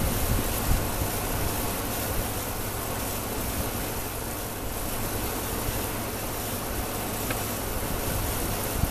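Steady outdoor background noise: a low rumble under an even hiss, like a motor running, with no distinct events.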